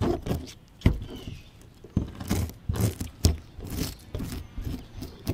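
A metal spoon scraping the scales off a bluegill from tail toward head, in a run of short, irregular scraping strokes.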